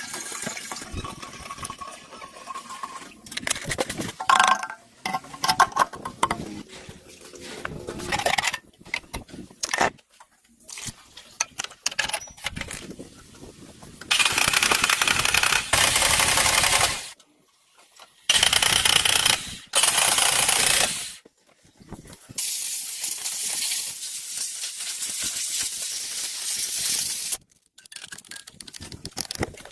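Metal tools clinking and tapping, then four long bursts of hissing spray that start and stop abruptly, the last lasting about five seconds.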